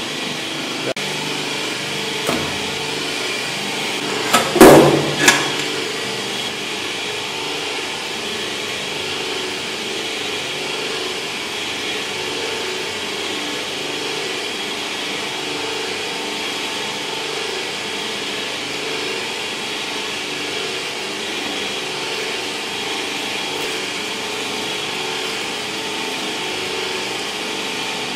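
Electric meat grinder running steadily, pushing minced organ-meat and rice filling through its stuffing tube into pork intestine casings. A few sharp knocks come about two to five seconds in, the loudest near four and a half seconds.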